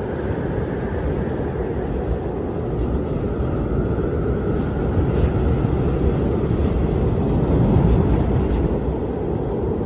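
Wind howling: a steady rush of noise with a low moaning tone that drifts slowly up and down in pitch.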